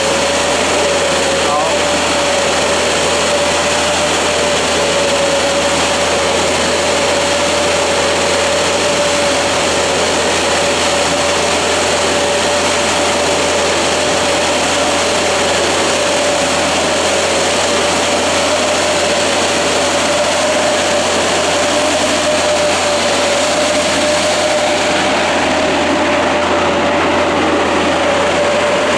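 Oscillating fan orchard sprayer and its tractor running steadily while spraying: a loud, even rush of fan air and spray with a constant mid-pitched whine over it.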